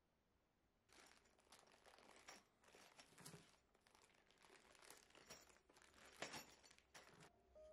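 Faint crinkling and rustling of packaging being handled, in irregular bursts starting about a second in.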